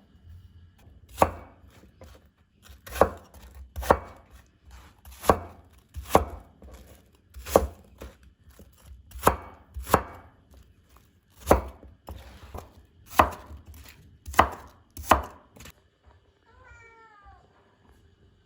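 A kitchen knife chopping peeled apples into small pieces on a cutting board: about a dozen sharp, irregular chops, roughly one a second, stopping about three seconds before the end. Near the end comes a brief, high, wavering call.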